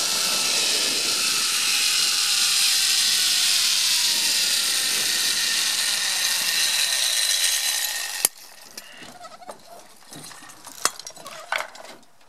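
Zipline trolley pulleys running along the steel cable, with wind: a loud rushing hiss and a faint whine that falls slowly in pitch as the rider slows. About eight seconds in, a sharp bang as the trolley reaches the brake at the landing platform, then scattered metal clicks and clanks of the trolley and carabiners.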